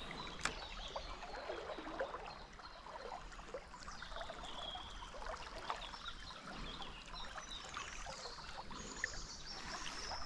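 River water trickling and flowing gently, a faint steady hiss with small splashes, with a few faint bird calls above it.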